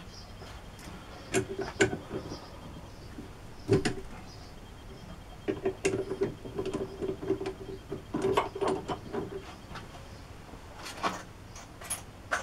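Metal parts and tools being handled at a workbench: scattered clicks and knocks, with short bursts of rattling scraping about halfway through.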